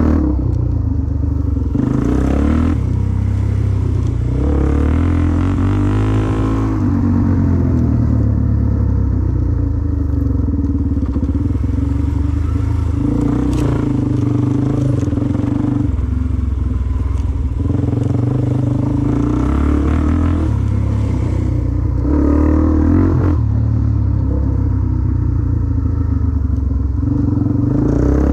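Off-road dirt bike engine running under way, its revs rising and falling repeatedly as the rider works the throttle and gears.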